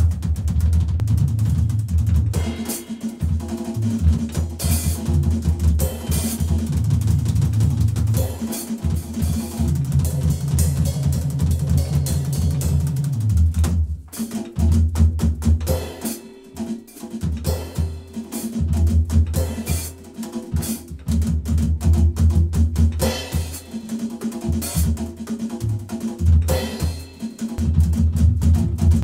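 Drum kit playing a candombe-style Latin groove, with bass drum, snare and cymbal strikes, over a backing track with a bass line. About halfway through the bass drops out for a couple of seconds and the drumming thins before the groove comes back.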